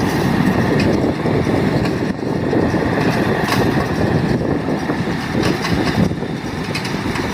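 Tractor running and driving a Massey Ferguson Hesston 1745 round baler on a test run: steady mechanical running noise with a few faint clicks.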